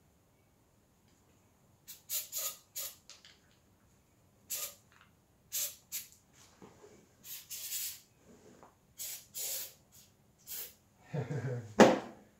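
WD-40 aerosol can sprayed in a series of short hissing bursts, one a little longer, onto the air compressor's fitting and threads to loosen and lubricate them. A sharp knock near the end.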